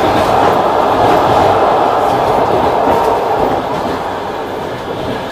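Passenger train running at speed, heard from inside a carriage: a steady rush and rumble of the wheels on the rails that eases slightly in loudness about three and a half seconds in.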